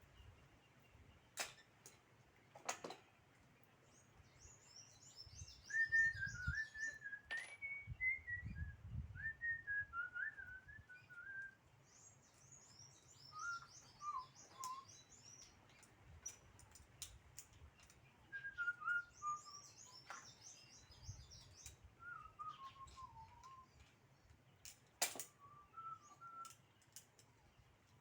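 Birds calling: phrases of short whistled notes that step downward in pitch, alternating with three bouts of high, rapid chattering. A few sharp clicks and some low thumps come in between.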